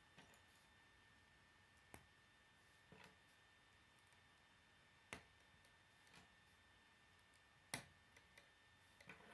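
K'nex plastic rods and connectors clicking as they are snapped together by hand: sparse, irregular sharp clicks, the loudest about three-quarters of the way through.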